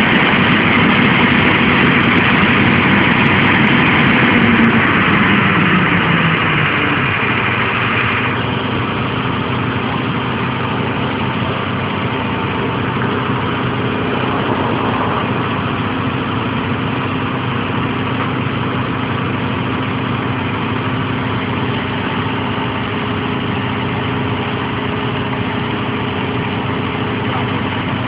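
Fire ladder truck's diesel engine running at raised speed for the aerial ladder, its pitch gliding down as it slows about five seconds in, and a higher-pitched noise cutting off about eight seconds in; it then runs steadily.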